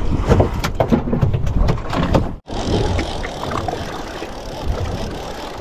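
Wind buffeting the microphone and water slapping against a small boat's hull, with handling knocks and clicks through the first two seconds or so. The sound cuts out for an instant about two and a half seconds in, then goes on as a steady rush of wind and water.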